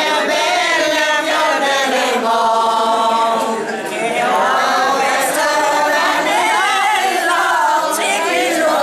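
Elderly women singing a traditional folk song together without accompaniment, with long held notes.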